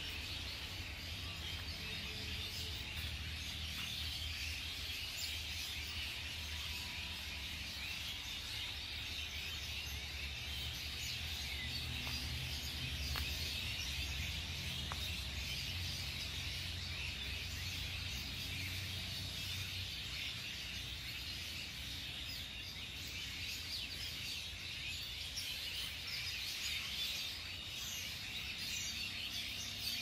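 Continuous outdoor nature ambience: dense, high-pitched chirping over a low rumble, steady throughout.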